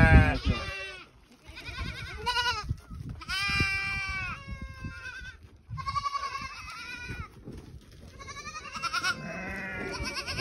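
Goat kids bleating, a string of high, quavering calls in about five bouts, some overlapping, from kids crowding to be bottle-fed.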